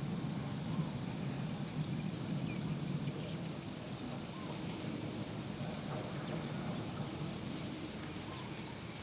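A bird giving short, high, upswept chirps, repeated about once a second, over a steady low background rumble.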